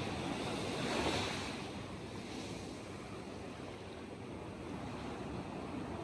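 Sea waves breaking and washing over a rocky shelf: one wave swells to a crash about a second in, then dies back into a quieter hiss of surf.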